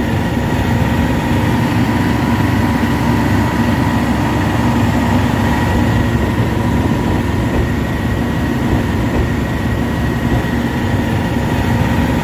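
Hitachi ZX350LC-3 excavator's Isuzu 6HK1 six-cylinder diesel engine running steadily, a deep rumble with a steady high whine over it.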